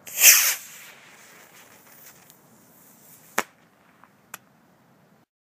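Estes model rocket motor firing as the Tercel boost glider launches: a sharp whoosh of about half a second that falls quickly in pitch, trailing off into a fading hiss. Two sharp clicks follow later.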